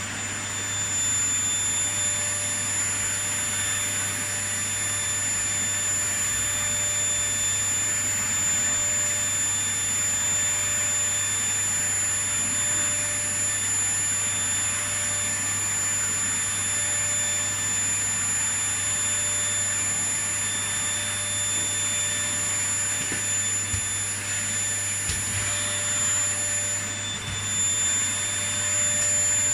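Vacuum cleaner running steadily: a constant rush of air with a steady whine over it.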